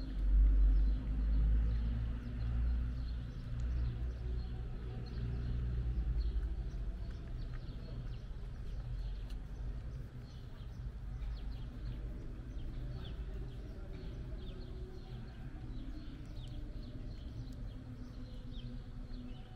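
Outdoor ambience: a low rumble, loudest in the first few seconds and then settling to a steady lower level, with many small high chirps and clicks scattered through it.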